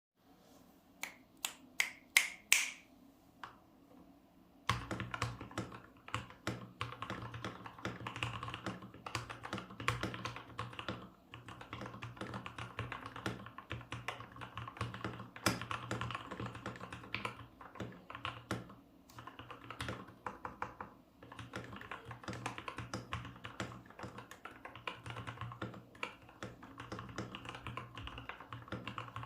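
Typing on a Gamakay LK67 mechanical keyboard with lubed and filmed Cherry MX Black linear switches. A handful of single keystrokes come first, then steady fast typing from about five seconds in.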